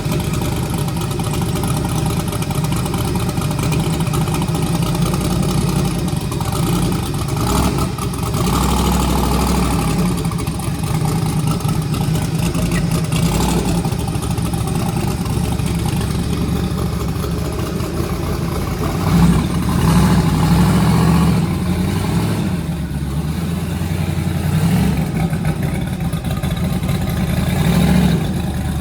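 A car engine running continuously, its pitch shifting up and down every few seconds.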